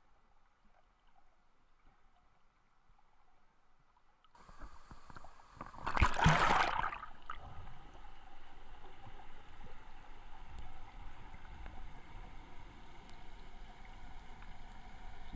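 Muffled creek water recorded underwater: almost silent at first, then about four seconds in a rushing of water rises into a loud surge, which settles into a steady rush of flowing water.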